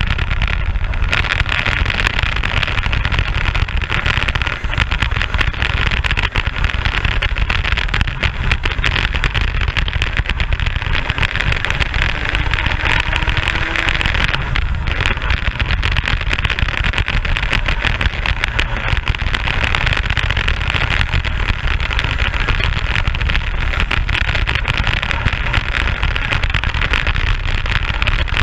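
Racing kart engine at speed, heard from on board the kart, running hard with brief lifts off the throttle about a second in and again about halfway through.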